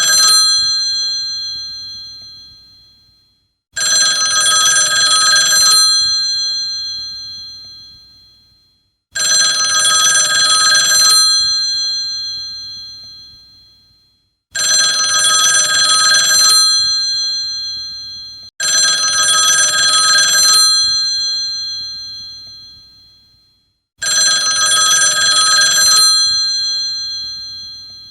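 Old telephone bell ringing in repeated rings. Each ring lasts about two seconds and then dies away, with a new ring roughly every five seconds.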